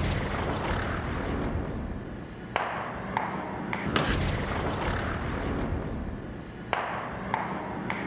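Butane lighter bursting into a fireball in a blowtorch flame, heard as a few sharp bangs over the steady hiss of the torch.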